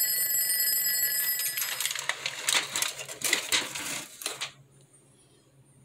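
Alarm-clock ringing sound effect: a bell rings steadily for about two seconds, then turns into a fast, uneven clatter of strikes. It stops about four and a half seconds in.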